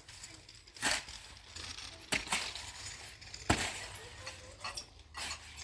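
A handful of sharp knocks and clinks, about five spread over a few seconds, the loudest in the middle.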